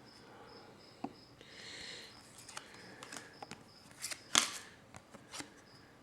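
Trading cards being handled: a soft swish of a card sliding off the stack about two seconds in, then a run of sharp clicks and taps, the loudest about four and a half seconds in.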